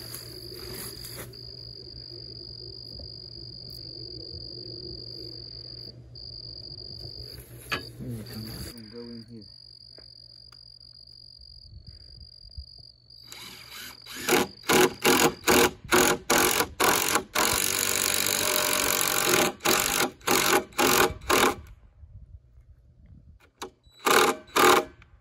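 Cordless DeWalt drill/driver driving screws into a wooden brace, run in short stop-start bursts with one longer run in the middle, then two more short bursts near the end. Crickets chirp steadily in the first part, before the drilling starts.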